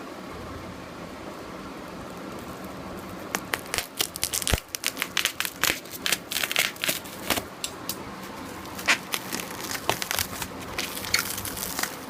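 Packaging being handled during an unboxing: a run of irregular crinkling and crackling that starts about three seconds in and goes on in quick, uneven snaps.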